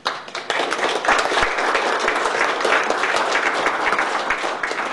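A roomful of people applauding: many hands clapping, breaking out suddenly and holding steady.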